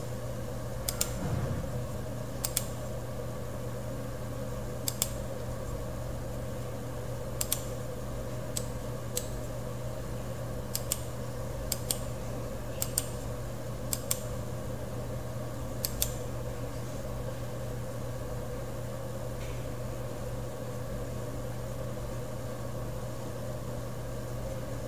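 Computer mouse clicking: about eleven short, sharp clicks at irregular intervals over the first sixteen seconds, the clicks of placing points with a 3D modelling program's line tool. A steady low hum runs underneath.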